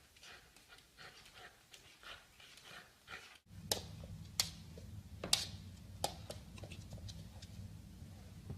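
A dog panting in quick, regular breaths. About three and a half seconds in, the sound cuts to a low steady hum with a few sharp clicks.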